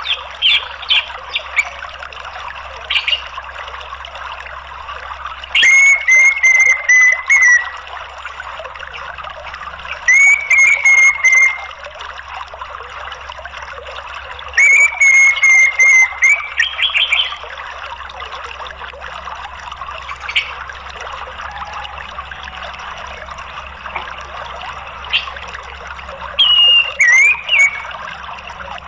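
Orange-headed thrush calls over steadily running water: four loud calls, each a held whistle with a rapid high chatter over it lasting one to two seconds, plus a few short chirps in between.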